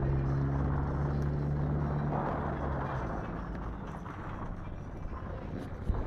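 A motor vehicle's engine running with a steady low hum that fades out about three seconds in, leaving an even rushing outdoor noise.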